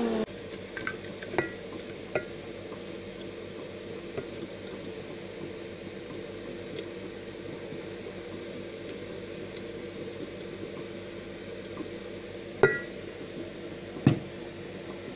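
Glass bowl and spoon clinking against a glass jar as soft lemon pulp is scraped in: scattered light clinks, then two louder glass knocks near the end.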